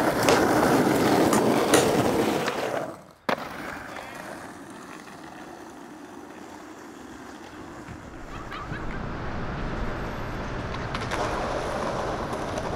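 Skateboard wheels rolling over rough asphalt, loud and grinding, with sharp clacks of the board, cutting off suddenly about three seconds in. Quieter, more distant rolling follows and slowly grows louder, with a few clacks near the end.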